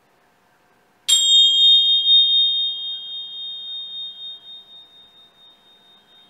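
A small hand-held metal chime is struck once about a second in and rings on in a high, wavering tone that slowly fades away.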